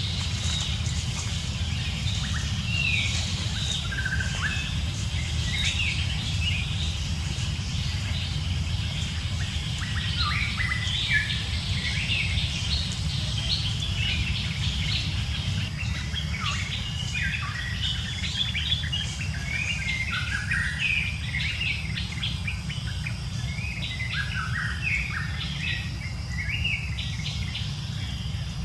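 Many short, high chirping calls, scattered and overlapping throughout, over a steady low rumble.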